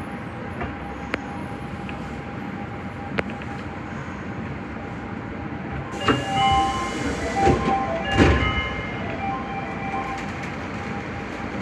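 Nagoya Municipal Subway Higashiyama Line 5050-series train running in the tunnel: steady running noise with a held tone. About six seconds in, a louder rush of noise with several high whining tones lasts about three seconds.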